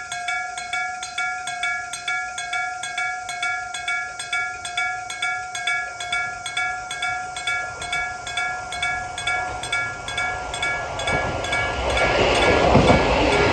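Japanese railway level crossing alarm ringing in rapid, even dings. A train approaching the crossing grows louder over the last few seconds and is loudest near the end.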